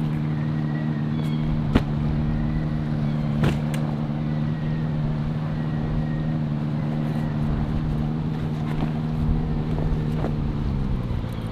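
Engine running steadily at one speed, dropping slightly in pitch near the end, with two sharp knocks in the first few seconds.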